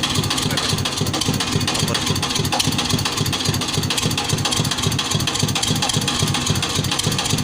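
Engine of a water-well boring machine running steadily, a regular beat of about six pulses a second over constant mechanical noise.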